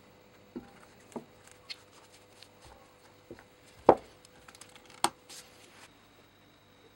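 Handling noise of a steel broad axe and its leather blade sheath being moved and fitted together on a wooden workbench: a scatter of light taps and knocks, with two louder knocks about four and five seconds in.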